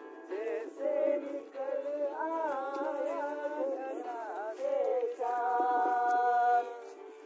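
A voice singing a wordless, sliding melody, ending in one long held note about five seconds in.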